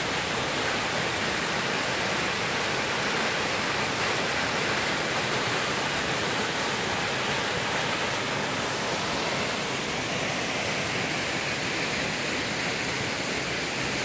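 Waterfall in full flow after heavy rain, a steady, even rush of falling water.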